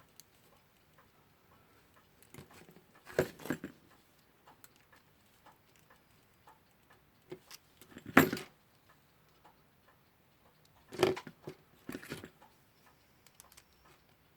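Small metal clicks and clatters of hand tools working on the parts of a disassembled alarm clock movement while a bent piece is straightened, coming in three irregular clusters with the loudest in the middle.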